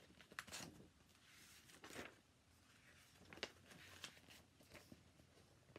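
Faint rustling and soft handling of a hardcover picture book as its pages are turned, a few short paper sounds against near silence.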